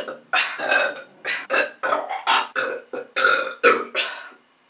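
A woman burping over and over in a quick run of short burps, about two or three a second, stopping just before the end. The burps are brought up by bananas and a chugged 2-liter bottle of Sprite.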